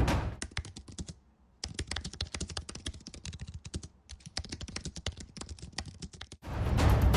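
Rapid typing on a computer keyboard: a fast run of key clicks with a short pause about a second in. Loud music fades out at the start and comes back in near the end.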